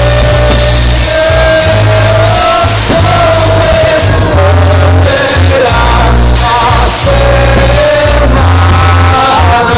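Loud music with a singing voice over a heavy, pulsing bass line.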